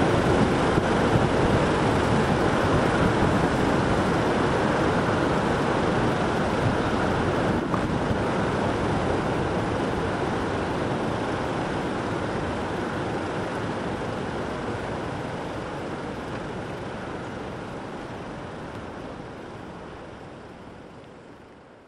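Steady rushing noise of jet airliner engines at taxi power, fading out slowly over the second half.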